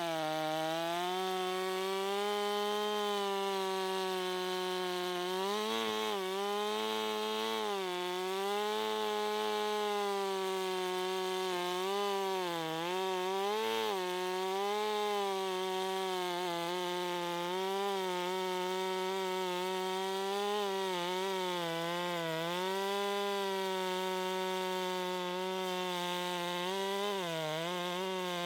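Stihl two-stroke chainsaw running at high speed while cutting through a log. Its engine note sags and recovers repeatedly as the chain takes and sheds load in the cut.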